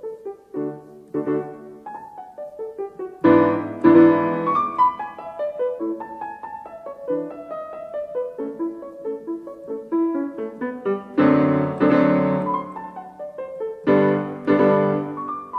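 Background piano music: a running line of quick notes, with loud full chords struck about three seconds in, again around eleven seconds, and near the end.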